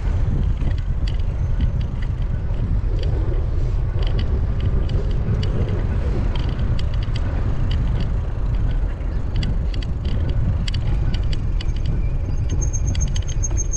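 Wind buffeting the microphone of a bike-mounted action camera while cycling, with scattered clicks and rattles from the bicycle running over brick paving. A thin high-pitched squeal starts near the end.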